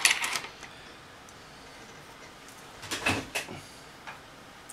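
Hands handling objects on a desk: two short bursts of rustling, scraping handling noise, one at the start and one about three seconds in.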